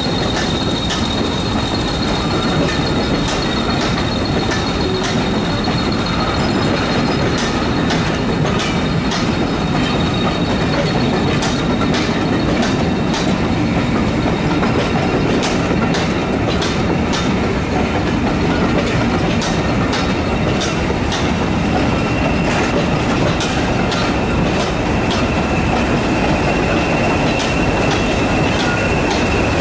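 A train of heritage passenger coaches running past with a steady rumble and repeated wheel clicks over rail joints. A high steady wheel squeal is heard over it and drops to a lower pitch about two-thirds of the way through.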